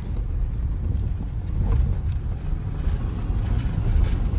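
Vehicle cabin noise while driving slowly on a gravel trail: a steady low rumble of engine and tyres, with a few faint clicks and rattles.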